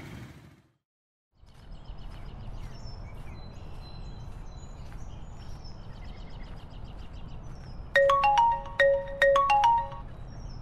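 Mobile phone ringtone: a quick marimba-style melody of short, bright notes, loud for about two seconds starting about eight seconds in, over faint outdoor ambience with bird chirps. The sound cuts out briefly about a second in.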